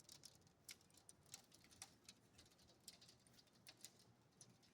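Near silence with faint, irregular clicks and ticks, the sound of a freshly cracked glass door panel crackling as the broken glass settles.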